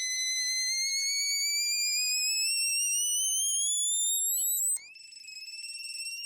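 Bird sound effect: a high, rapidly warbling whistle that glides slowly upward in pitch. It breaks off with a click about five seconds in, then comes back a little higher and rises again.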